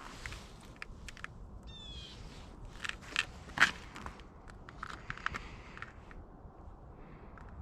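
Footsteps crunching on snow-covered ice: irregular crunches and clicks, a few louder ones a little past the middle, with a brief high squeak about two seconds in.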